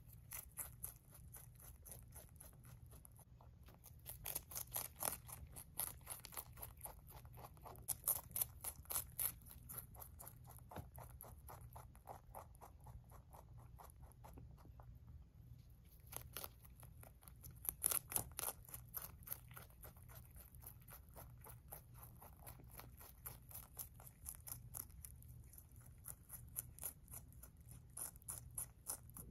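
Rabbit chewing lettuce: quiet, rapid crunching, several bites a second, louder in spells a few seconds long.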